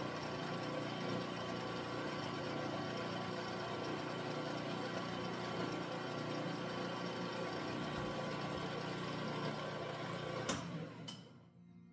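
Benchtop mini mill running steadily, drilling a hole in a metal part with a bit held in its drill chuck. The motor is switched off with a click about ten and a half seconds in and winds down.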